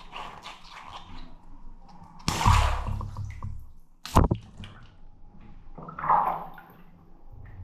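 Water-balloon popping sound effects: a loud watery splash about two seconds in, a sharp pop about four seconds in, and another splash about six seconds in, over light dripping.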